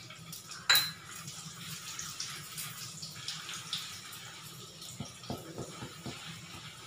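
Oil sizzling steadily in a kadai as whole urad dal and chana dal roast with curry leaves. A sharp knock comes under a second in, and from about five seconds a silicone spatula scrapes and taps against the pan as it stirs.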